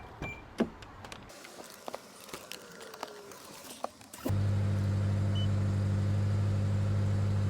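A few small clicks and knocks, then about four seconds in a BMW X6's engine starts and settles into a steady idle.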